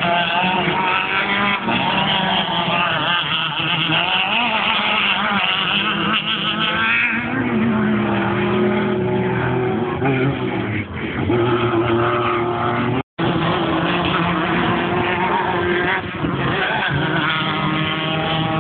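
Class 1 off-road race buggy engines running hard and revving, the engine notes rising and falling as the vehicles accelerate and pass. The sound cuts out for an instant partway through.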